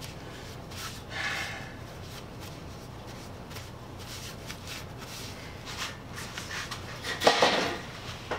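Small metal lathe-chuck parts being handled and wiped with a rag: scattered light clicks and rubbing. A louder rustling noise comes about seven seconds in, over a low steady hum.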